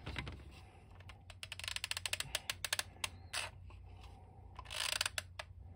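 Hard plastic toy parts, the hull and seat of a G.I. Joe Devilfish boat, clicking and tapping as they are handled and fitted together. A run of quick small clicks from about a second in to about three seconds, and another short run near the end.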